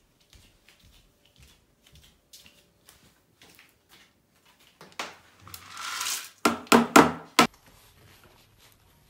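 Faint scattered ticks, then, about five seconds in, a burst of rustling handling noise close to the microphone. Several sharp clattering knocks follow and stop abruptly.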